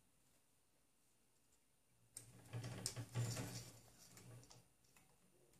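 Near silence, then about two seconds in a run of light clicks and rustling for about three seconds as hands work a rubber toothed timing belt around a 3D printer's X-axis idler bearing and motor pulley.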